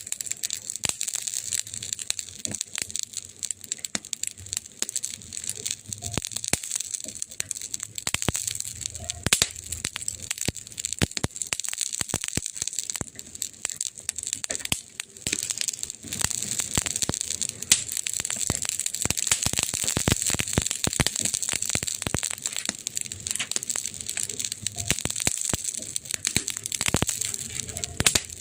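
Wood fire crackling, with many irregular sharp pops and snaps over a steady hiss.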